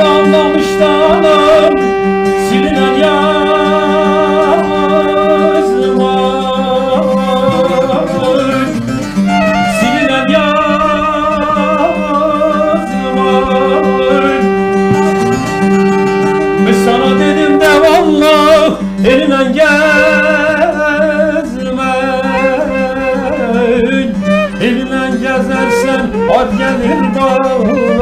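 Live Turkish folk music: a man sings a long, wavering melody over violin and bağlama (long-necked saz), with a steady low drone underneath.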